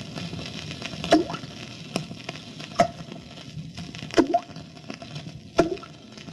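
Sound-effect water drips: single droplets plopping one at a time at a slow, even pace, about one every second and a half, four clear drops with a fainter one between, the drip of the Chinese water torture.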